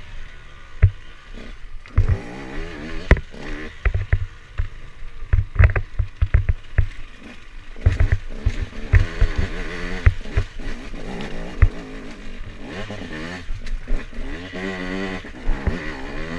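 Husqvarna TE 125 enduro motorcycle engine being ridden, its pitch rising and falling as the throttle is opened and closed, with many sharp knocks and clatter as the bike rides over loose rocks, thickest in the middle.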